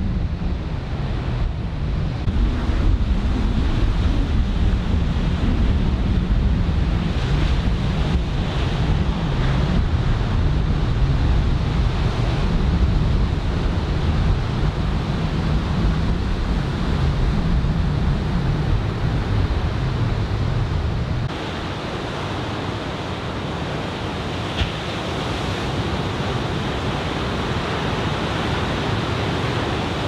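Ocean surf breaking, with wind rumbling on the microphone; the wind rumble drops away suddenly about two-thirds of the way through, leaving the steady hiss of the waves.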